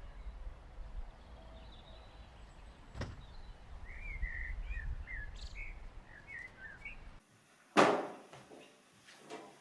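Small birds chirping over a low outdoor rumble, with a sharp click about three seconds in. The outdoor sound then cuts off, and soon after comes one loud thump indoors that dies away quickly, followed by a few faint knocks.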